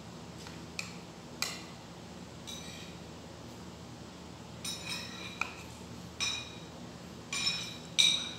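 A metal spoon clinking and scraping against a ceramic plate of rice, a string of short irregular clinks with a brief ring, the loudest near the end, over a faint steady low hum.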